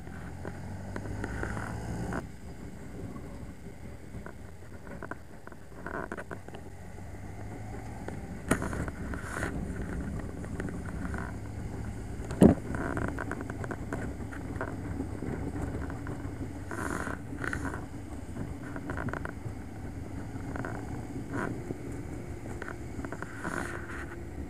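Motorcycle engine running at a steady road pace, heard from the bike with wind rushing past, with scattered short clicks and one sharp, loud knock about halfway through.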